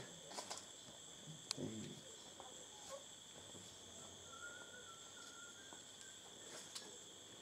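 Rainforest insects, crickets or similar, calling in a steady high-pitched chorus, with a few faint short clicks over it.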